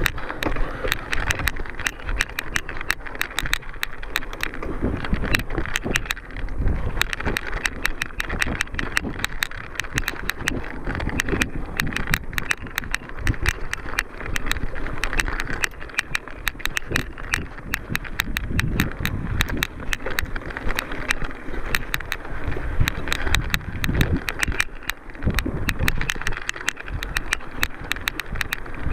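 Mountain bike ridden hard over rough trail: a constant clatter of rattles and clicks from the bike as it bounces over the ground, with tyre noise and wind on the microphone.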